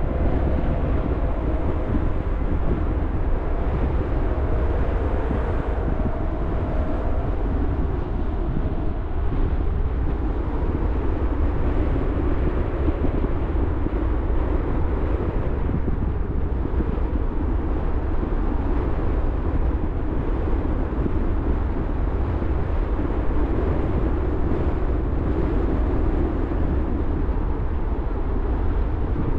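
Steady rumble of a car driving along: tyre and road noise with the engine, deepest in a low drone. A faint humming tone fades out over the first few seconds.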